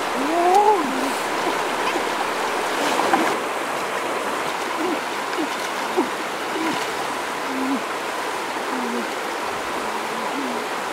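Shallow, rocky stream running steadily, with hands splashing and groping among the submerged stones. A few brief voice-like sounds come over it, the loudest about half a second in.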